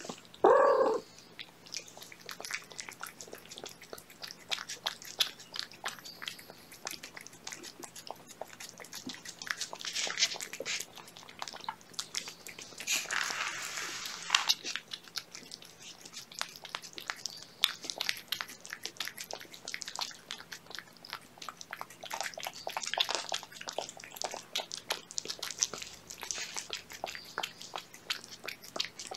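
Cats eating canned wet cat food: dense, quick wet chewing and licking clicks at a plate and from fingers, in clusters. About half a second in there is one short loud cry, the loudest sound.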